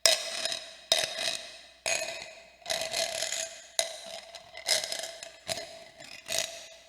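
Sound-effect ambience of sudden scraping, rattling hits, about one a second, each fading away, over a steady ringing tone; it stops just before the end.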